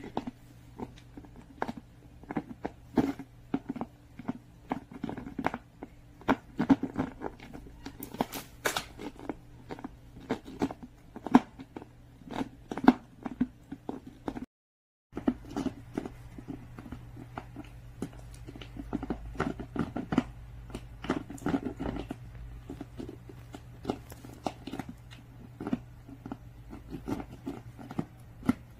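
French bulldog gnawing and biting at the cap end of an empty plastic PET water bottle: irregular sharp crackles and clicks of the plastic under its teeth, over a low steady hum.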